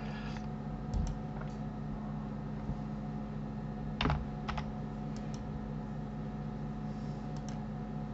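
A handful of separate computer keyboard keystrokes, the loudest about four seconds in, over a steady low hum.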